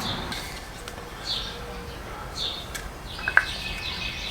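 A few short bird chirps about a second apart, and a sharp click a little over three seconds in, the loudest sound.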